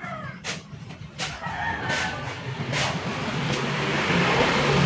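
A rooster crowing in the background near the start, with a few light clicks. A steady noise with a low hum swells towards the end and becomes the loudest sound.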